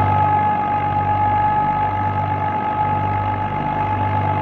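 Ghazi 65 HP tractor's diesel engine running steadily under load, powering a wheat thresher. A steady high-pitched whine rides over the engine's drone.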